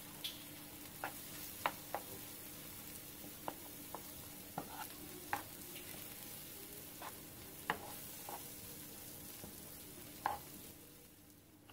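Butter melting into sautéing mushrooms, onions and poblano pepper in a frying pan, sizzling softly as the start of a roux, while a wooden spoon stirs with irregular knocks and scrapes against the pan.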